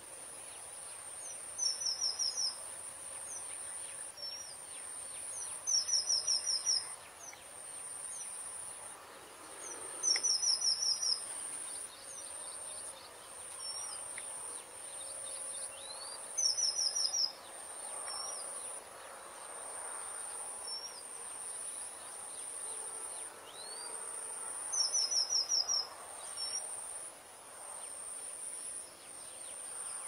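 Strawberry finch (red avadavat) singing: five short, high-pitched phrases of quick repeated notes a few seconds apart, with scattered single chirps between them. A steady high insect buzz runs underneath.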